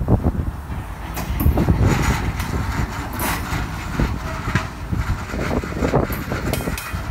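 Loaded open-top rock hopper cars rolling past at close range: steel wheels running over the rails in a steady low rumble, with sharp clanks and brief high squeals several times along the train.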